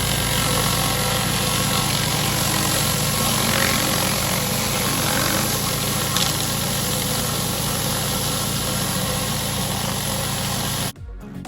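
Pressure washer running steadily: engine hum under a loud hiss of high-pressure water spray, stopping suddenly near the end.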